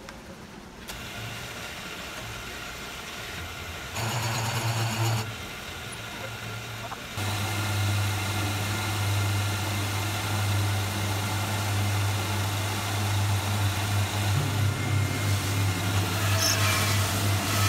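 Milling machine motor and spindle running with a steady hum that comes on about a second in and grows louder and even from about seven seconds. Near the end the end mill cuts into the wooden slab, adding a rough crackling of wood chips.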